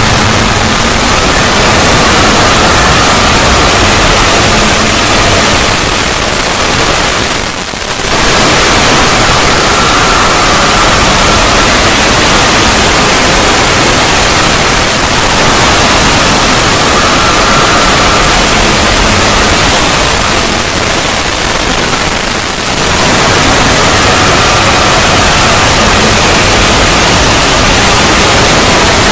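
Synthetic 'void' logo sound effect: a loud, harsh wall of static-like noise across all pitches, with faint tones fading in and out. It dips briefly twice, once about a quarter of the way in and again about three quarters of the way in.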